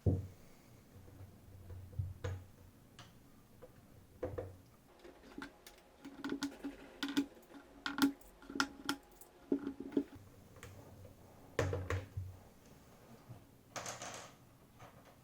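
Hands and tools working on a Hantek DSO5202P oscilloscope's casing during disassembly, with scattered clicks and knocks. A quick run of small ticks comes in the middle, and a short scraping rush comes near the end.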